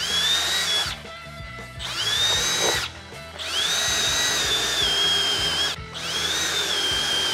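Power drill run in four bursts, each a whine that rises as the motor spins up and then holds steady, drilling in the fittings of a temporary switch panel.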